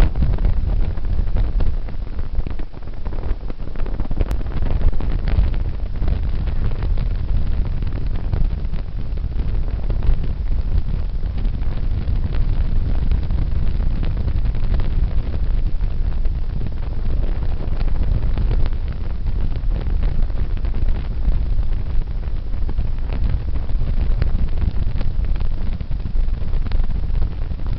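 Wind buffeting the microphone: a steady low rumble with a fainter hiss above it and scattered small crackles.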